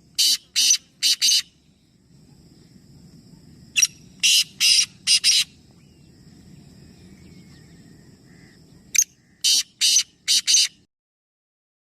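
A bird giving harsh, screechy calls in three rapid series of four or five each, with pauses of a few seconds between series.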